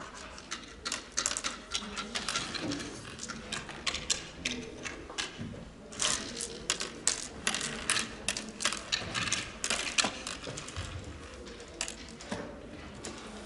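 Hard oware seeds clicking against the wooden pits of an oware board as a player picks them up and sows them one by one. The clicks come in quick irregular runs in two spells, with a pause around five to six seconds, and thin out near the end.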